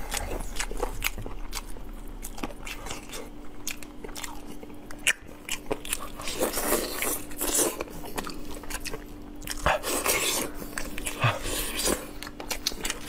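Close-miked eating: two people biting and gnawing meat off saucy braised rib bones and chewing it, in a run of irregular short wet clicks.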